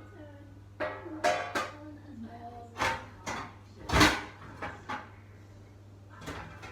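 Metal kitchenware, baking tins and pans, clattering as it is handled: a series of sharp clanks and knocks, some with a short ring, the loudest about four seconds in.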